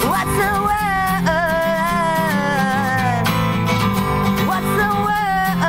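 Acoustic guitar strummed steadily while a woman sings a long, wavering melody over it.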